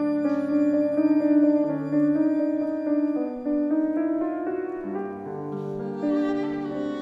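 Live chamber ensemble playing classical music, with bowed violins carrying the melody; a note slides upward about four seconds in.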